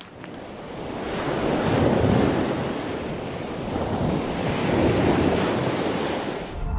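Surf washing on a sandy beach, swelling twice, about two and five seconds in.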